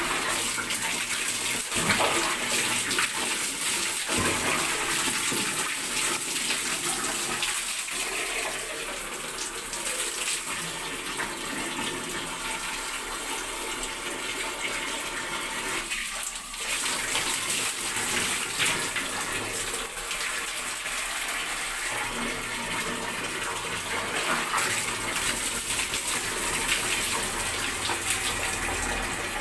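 Water running and splashing steadily in a tiled bathroom during a hair wash, with a few brief louder splashes.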